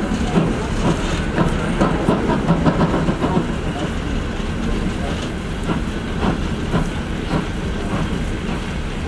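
Steam-hauled passenger train running along the track, its coach wheels clattering on the rails over a steady rumble.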